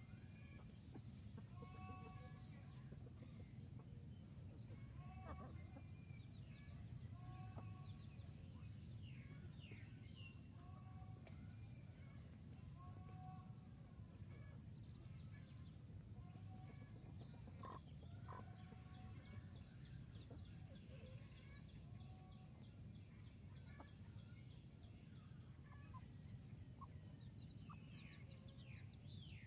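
A chicken clucking softly, short two-note clucks repeated every second or two, with faint high, falling chirps here and there.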